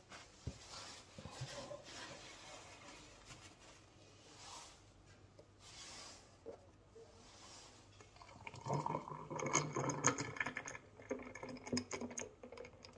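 Juice poured from a jug into a glass of ice cubes, splashing onto the ice, starting about two-thirds of the way through and running for about four seconds. Before it, only faint handling sounds.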